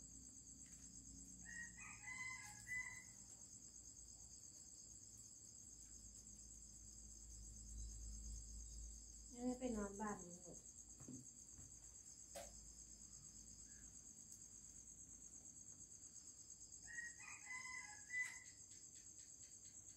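Crickets chirping in a faint, steady, pulsing high drone, with a rooster crowing faintly a few times; the loudest call, about ten seconds in, falls in pitch at its end.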